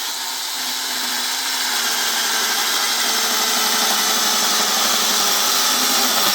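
Battery-powered mini chainsaw cutting through a log under load, its motor pitch climbing slowly as the cut goes on, then cutting out suddenly near the end as it breaks through.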